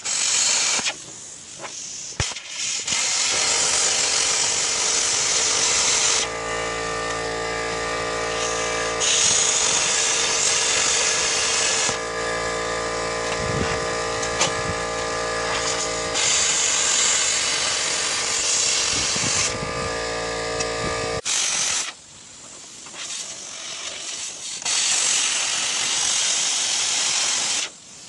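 Handheld plasma cutter hissing as it cuts through steel plate, in several long stretches that start and stop abruptly. Between them a steady machine hum with a pitched drone.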